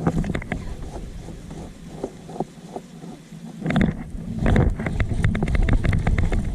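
Wind buffeting the microphone on open water, with scattered knocks and clicks. The low rumble grows much louder a little more than halfway through.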